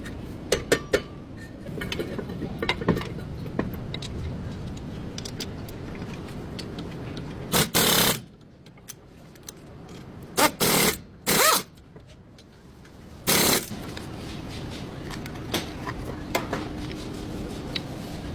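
Metal clinks of tools and brake parts being handled, then four short, loud bursts from a power tool in the middle of the stretch.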